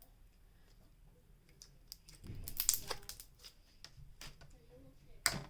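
Clear slime being squished and pulled in the hands, giving soft scattered clicks and pops with two louder crackly squelches, the first about two seconds in and a short one near the end.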